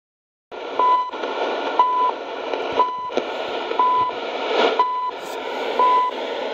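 Portable shortwave radio receiving a signal through static hiss, with a short, steady beep repeating exactly once a second. The sound starts about half a second in.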